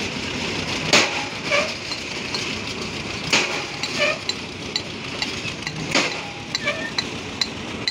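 Construction workers' hand tools at work: strong blows every two to three seconds, with quick, sharp metallic clinks coming thick and fast in the second half.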